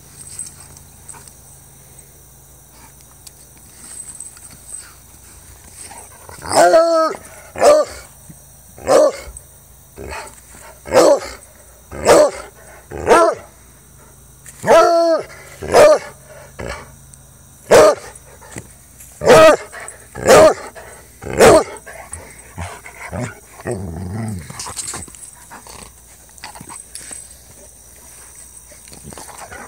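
Treeing Walker Coonhound barking and baying: about a dozen loud calls roughly a second apart, starting about six seconds in, two of them drawn out into longer bawls. A low growl follows near the end.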